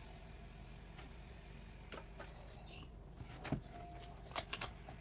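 A few light clicks and knocks from a painting canvas and tools being handled, the loudest about three and a half seconds in and two more close together near the end, over a faint steady hum.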